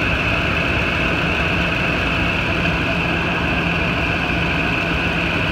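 2008 Ford F-250 Super Duty engine idling steadily, its serpentine belt running on a newly replaced tensioner with no grinding.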